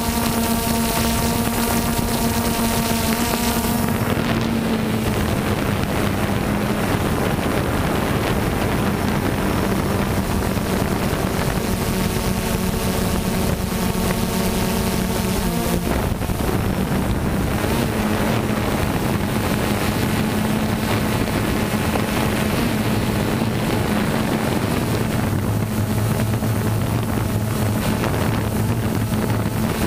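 DJI Phantom 2 quadcopter's electric motors and propellers humming steadily in flight, with wind noise on the microphone. The hum shifts pitch a few times as the throttle changes, and a deeper hum joins near the end.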